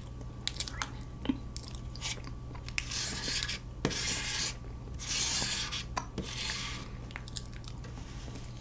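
A fork scraping leftover cream and cake crumbs across a cake board in several short strokes, with small clicks of the fork tines and some chewing.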